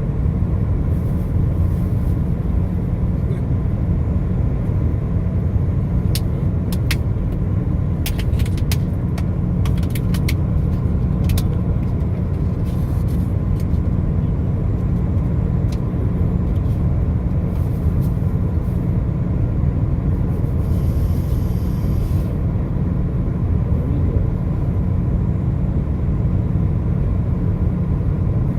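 Steady low rumble of a car driving on the highway, engine and tyre noise. A scatter of sharp clicks comes about a quarter of the way in, and a short high hiss about three quarters through.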